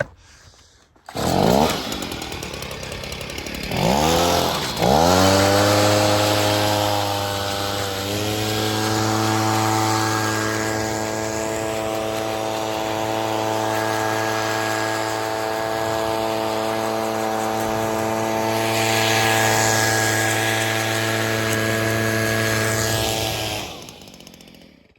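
Chainsaw engine revved up twice in quick swoops, then held at a steady high speed for about twenty seconds before cutting off near the end.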